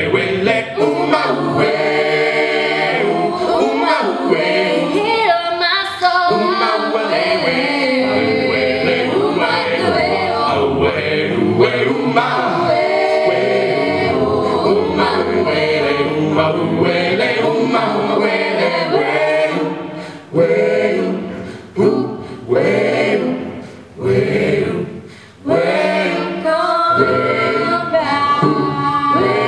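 Mixed choir of boys and girls singing a cappella into handheld microphones, amplified through a PA. Between about 20 and 26 seconds in, the singing breaks into short separate chords that each fade quickly, then the sustained singing resumes.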